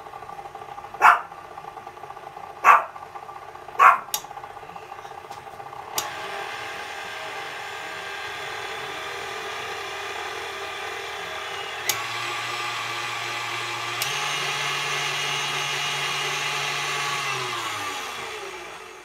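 KitchenAid tilt-head stand mixer's motor running with its flat beater turning in an empty bowl, stepping up in speed about six, twelve and fourteen seconds in, then switched off and spinning down with a falling whine near the end. Three short, loud barks come in the first four seconds and are the loudest sounds.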